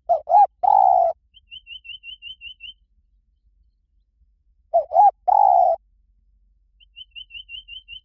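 Spotted dove cooing twice, each call two short coos followed by one longer coo. A quieter run of about seven quick high chirps follows each call.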